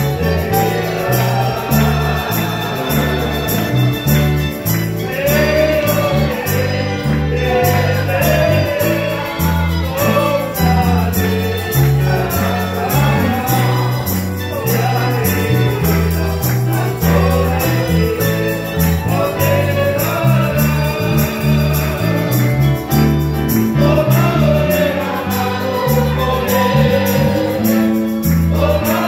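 Church worship music: voices singing a hymn together over strummed guitars and a steady bass line that changes note every beat or two.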